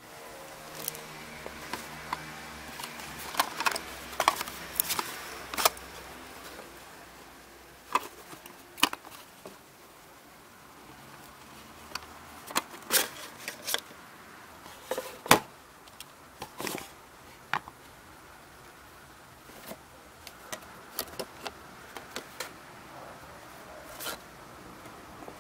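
Unboxing handling noise: a clear plastic box, cardboard sleeve and small plastic parts being handled. Irregular sharp clicks and taps come in clusters, with light rustling between them.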